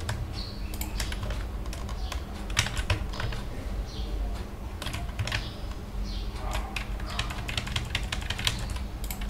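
Computer keyboard keys clicking in irregular runs of quick keystrokes, over a low steady hum.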